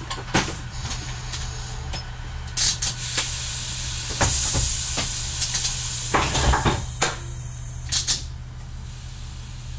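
Y1 diesel railcar standing with its engine idling in a steady low hum. A hiss swells for a few seconds in the middle, with several sharp clicks and knocks.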